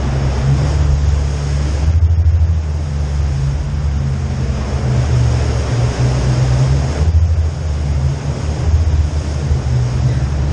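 Jeep Wrangler JK driving slowly over a wet, rocky tunnel floor: a steady low engine rumble under a rushing noise from the tyres and water, which thins briefly twice.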